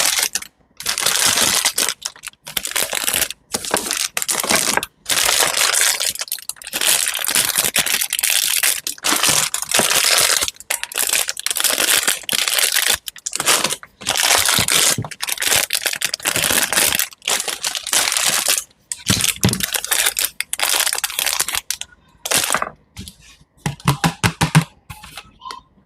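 Crisp crunching and crackling in repeated bursts of a second or two with short silent breaks between them, like something crisp being crushed or cut; the bursts grow shorter and sparser over the last few seconds.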